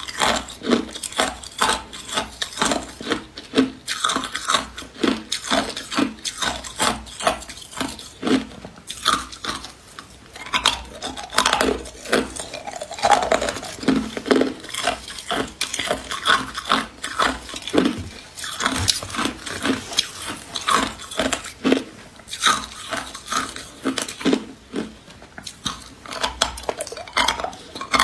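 Hard clear ice being bitten and chewed: rapid, irregular crunching and cracking, several crunches a second.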